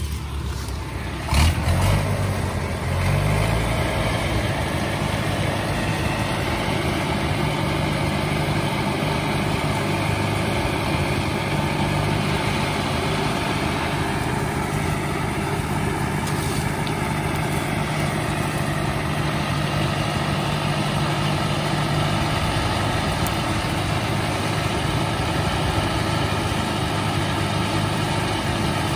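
David Brown 995 tractor's three-cylinder diesel engine running steadily at an even speed. A short knock sounds about a second and a half in.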